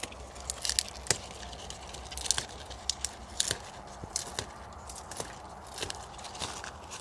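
Insulin plant (Costus igneus) leaves being torn off their stalks by hand: an irregular run of sharp snaps and tears amid rustling foliage.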